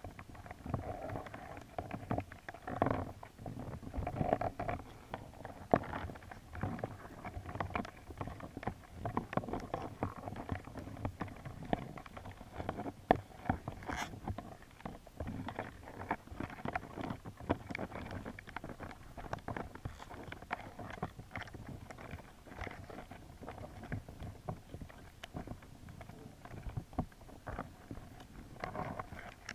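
Underwater sound heard through a GoPro's waterproof housing: a muffled, steady churn of water, dotted with frequent irregular clicks and knocks, one sharper click about halfway through.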